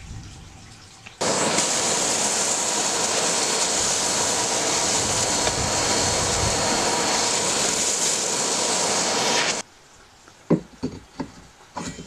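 An electric power tool runs steadily with an even hiss-like noise, switched on about a second in and off again near the end. A few sharp wooden knocks and clicks follow as the handle is handled.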